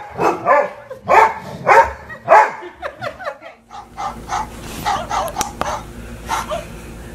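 Golden retriever barking, about five short, loud barks in quick succession. Then fainter, softer sounds over a steady low hum.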